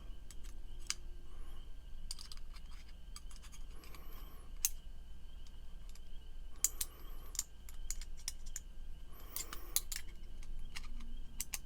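Small metal parts of a titanium frame-lock pocket knife clicking and ticking as they are handled and fitted together at the pivot, in several short clusters of sharp clicks.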